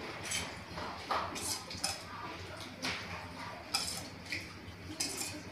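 Irregular clinks and clatters of dishes and metal utensils being handled, scattered short knocks over a low household background.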